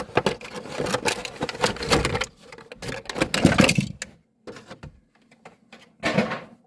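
Hot Wheels 5-pack box, its cardboard and plastic packaging being torn open and handled: dense crackling and clicking for about four seconds, then a few scattered clicks and a short rustling burst near the end.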